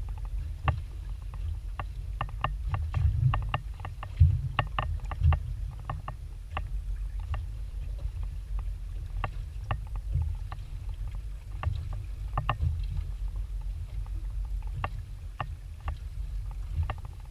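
Water lapping against a small aluminium boat's hull: a low rumble with many irregular sharp knocks and clicks.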